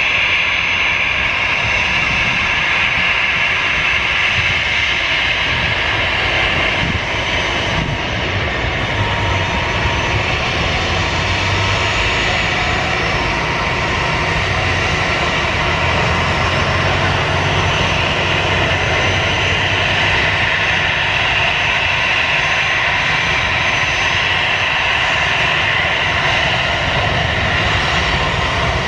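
Airbus A320's twin jet engines running at low power as the airliner taxis close by: a steady high whine over a low rumble.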